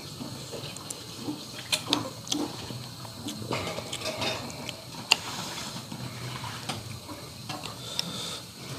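A person eating bakso (meatball soup) from a bowl: a spoon clicks against the bowl a few times, with soft eating and soup sounds between.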